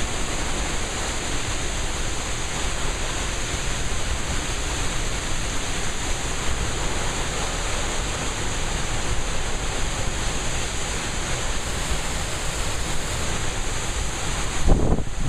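Steady rush of heavy rain and strong thunderstorm wind, with the wind buffeting the microphone; a stronger gust hits the microphone near the end.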